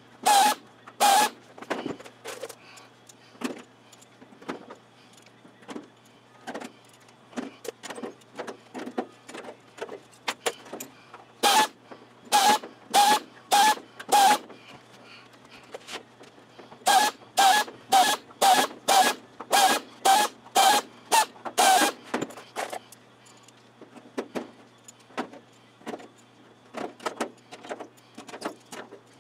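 Pneumatic air drill drilling holes through thin aluminium wing skin, one short whirr per hole, in runs of about five and then about ten. Lighter clicks of metal handling come between the runs.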